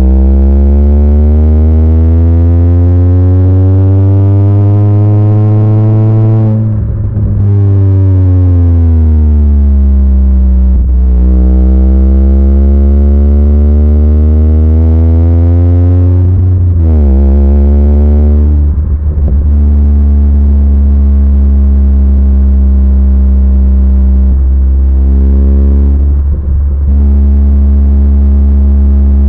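Honda Fit's four-cylinder engine and aftermarket Yonaka exhaust droning loudly, heard from inside the cabin while driving at about 2,000 rpm. The drone's pitch rises and falls slowly a few times, then holds steady for the last ten seconds.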